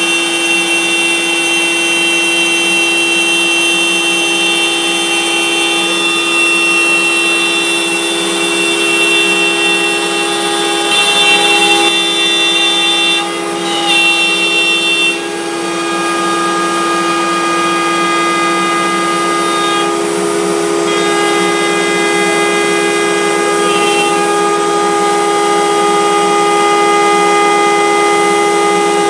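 CNC router's spindle router running under load as it mills a pocket into a panel: a steady whine made of several held tones. About halfway through it turns briefly louder and wavers, then settles again.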